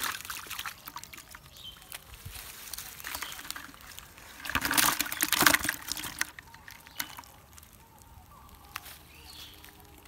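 Live, freshly caught fish thrashing and splashing in a little water in a plastic bucket, a loud burst of splashing of about two seconds midway, with scattered clicks and rustling before it.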